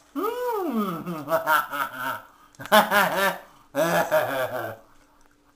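A man laughing: a long falling vocal sound, then three bursts of quick chuckles.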